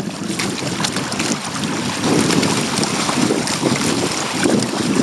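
Wind buffeting the microphone over water sloshing and splashing against the hull of a Hobie Tandem Island sailing kayak under way in a chop.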